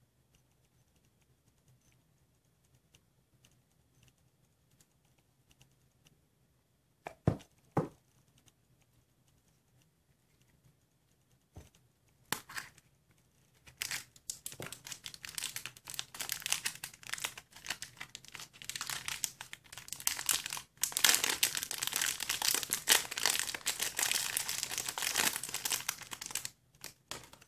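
Two sharp plastic clicks about seven seconds in, then from about twelve seconds a long run of crinkling and tearing of a thin clear plastic wrapper as a toy kart figure is unwrapped from it.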